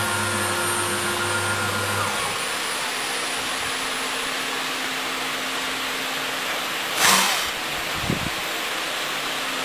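Two-head CNC router's spindles engraving a panel: a steady, even machining noise. A low hum underneath stops about two seconds in; about seven seconds in there is a short loud burst of noise, followed by a small thump.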